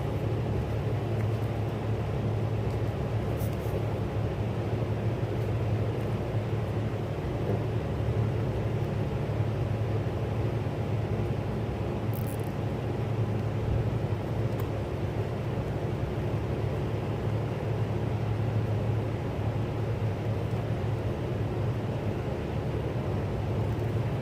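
Steady low mechanical hum, unchanging throughout, with a couple of faint light clicks.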